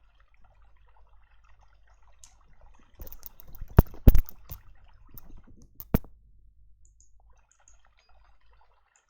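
Sound effects from an audio file loaded into an Android SoundPool, played back through speakers, with several sharp clicks, the loudest about four seconds in.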